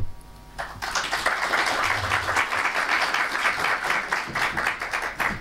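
Audience applauding, starting about half a second in and running steadily.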